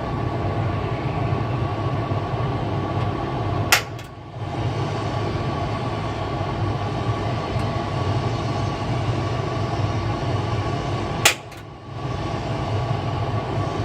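Cordless drill with a countersink bit running steadily while drilling out aircraft rivet heads. It stops twice for about half a second, each stop marked by a sharp click, then starts again.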